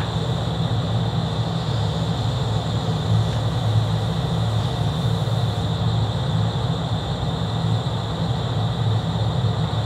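Steady low mechanical drone of running machinery, unchanging throughout, with a faint steady high whine above it.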